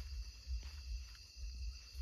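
Steady high chirring of night insects over an uneven low rumble on the microphone, with a few faint ticks.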